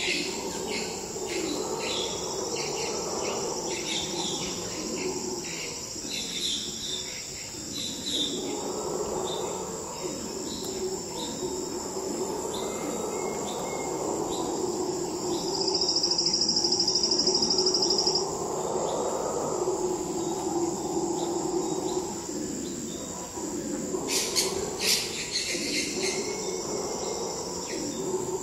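Howler monkeys roaring in long swelling bouts, over a steady high drone of rainforest insects with scattered chirps of insects and birds. About halfway through, a loud insect buzz sounds for about two seconds.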